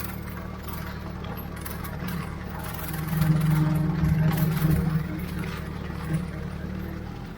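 Ford 3600 tractor engine running steadily, growing louder for about two seconds around the middle, then settling back.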